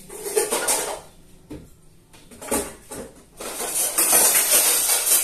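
Dishes and pots clattering and clinking as they are handled and stacked at a kitchen sink, in short bursts, followed by a longer stretch of steady hissing noise from about three and a half seconds in.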